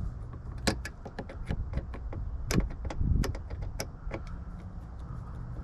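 Irregular clicks and knocks from a screwdriver and plastic door-trim parts being handled while the last screw is worked out, over a low steady rumble.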